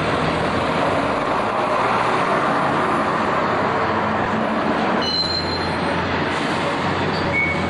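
Diesel engines of double-deck buses running as they move around a bus stand, a steady loud rumble and clatter. There is a brief high squeal about five seconds in and a shorter one near the end.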